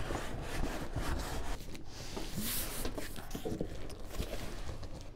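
Cardboard rubbing and scraping as an inner carton is slid up out of an outer cardboard shipping box, with a louder scrape about halfway through.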